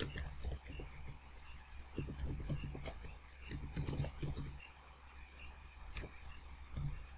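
Computer keyboard being typed on: irregular runs of key clicks, with a sharper click about six seconds in, over a low steady hum.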